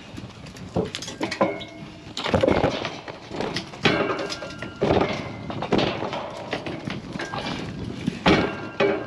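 Sheep running through a steel race and drafting gate, with their hooves clattering and their bodies knocking against the metal panels in a string of sharp thumps.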